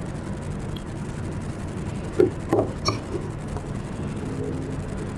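A few short knocks and rubbing about two to three seconds in as a small plastic-cased digital SWR meter is picked up and handled on a desk, over a steady low background hum.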